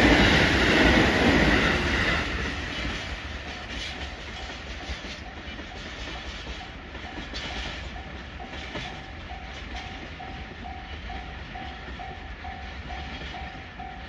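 Loud rolling rumble of a passing vehicle fading away over the first couple of seconds, leaving a quieter steady noise. From about six seconds in, a faint short beeping tone repeats about twice a second.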